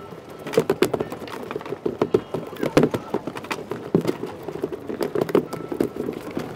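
Footsteps on the wooden planks of a fishing pier: an irregular run of hollow knocks and clicks from several steps.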